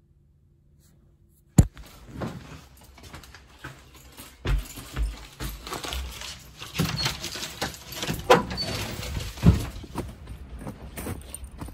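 Near silence for about a second and a half, then a sharp click. After it, irregular rustling and scattered dull thumps as a handheld phone is jostled and brushed against winter clothing.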